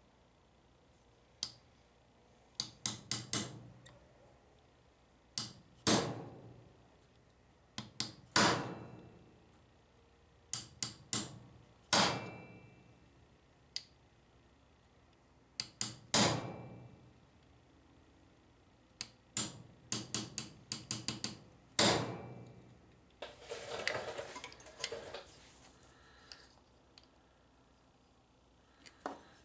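Hammer tapping on a vending-machine rotor gearbox part to loosen a corroded, pressed-on drive gear from its shaft. The taps come singly and in quick runs of three to five, with a longer rattling stretch near the end.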